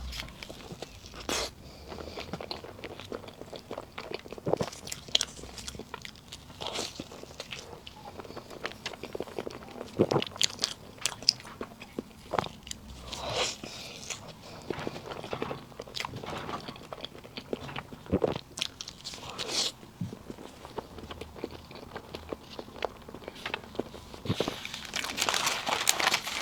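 Close-miked eating of a soft layered cake: irregular bites, chewing and wet mouth clicks and smacks. Near the end comes a longer rustling hiss.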